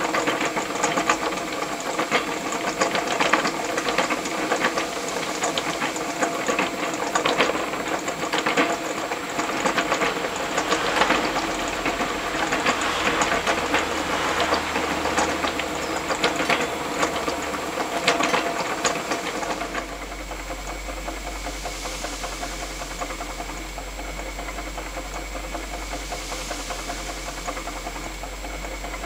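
Gas-fired model hot-air (Stirling cycle) fan motor running, its crank and linkages clattering with rapid ticks over a steady hiss. About twenty seconds in the clatter drops away, leaving a quieter, smoother running sound with a low hum.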